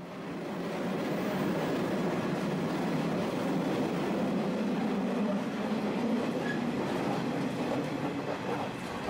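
Running noise inside a JR KiHa 32 diesel railcar moving at speed: the diesel engine and the wheels on the rails make a steady rumble that rises over the first second and then holds.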